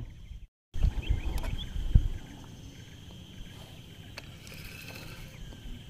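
Rumbling handling noise and a sharp knock against a wooden boat in the first two seconds, then quiet river ambience with a faint steady high tone.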